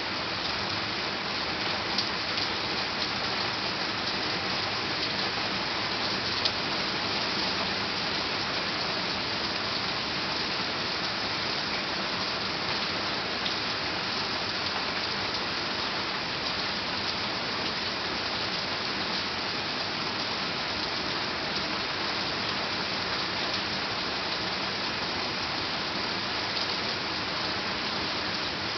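Heavy thunderstorm rain falling in a steady downpour, with a few louder single ticks of drops striking close by, the sharpest about six seconds in.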